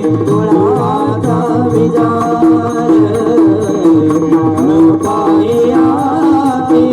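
Marathi devotional abhang being sung, with a wavering melodic vocal line over steady rhythmic drum accompaniment.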